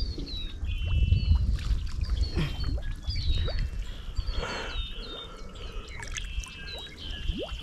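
Water splashing and trickling around a fishing canoe, with birds chirping throughout in many short, falling calls.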